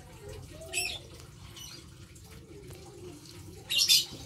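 Asian palm civets hissing in two short bursts while being hand-fed in a wire cage, the second near the end louder than the first.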